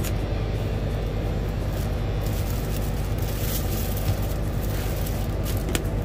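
Steady low machine hum, with a few brief clicks and crinkles from handling over it.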